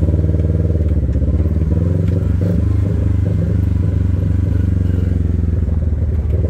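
Kawasaki Teryx KRX 1000 side-by-side's parallel-twin engine running steadily while driving along a rocky dirt trail, with a few faint clicks and rattles.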